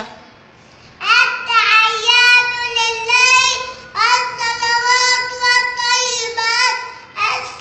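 A young boy's voice chanting the Arabic words of the Isha prayer aloud as imam, in long, drawn-out notes. It starts about a second in and has a short break midway.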